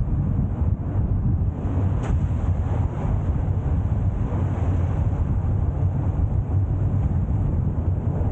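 Car on the move: a steady low rumble of engine and tyres on the road, with a brief click about two seconds in.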